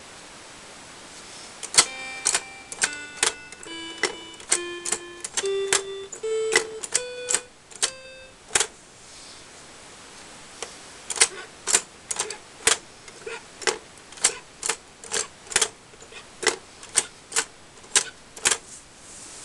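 Battery-powered toy piano playing short notes as keys are pressed one at a time, each note with a sharp key click: a rising scale over the first several seconds, then after a pause a second run of clicky notes, about two a second. The notes show the piano working again after its broken battery lead and board-to-board wiring were repaired.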